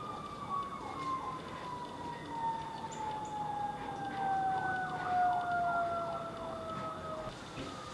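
A distant siren holding one long tone that falls slowly and steadily in pitch, like a siren winding down. Birds chirp repeatedly underneath.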